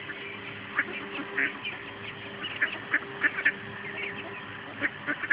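A flock of mallard ducks quacking in short, separate calls, several in quick succession at times.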